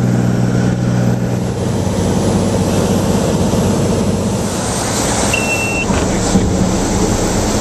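Cirrus SR22's six-cylinder piston engine and propeller droning steadily, heard inside the cabin. A brief high beep sounds about five seconds in.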